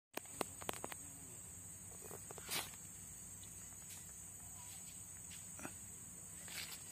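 Forest insects keep up a steady high-pitched drone. Over it come scattered light clicks and rustles in dry leaf litter, the loudest a brief rustle between two and three seconds in.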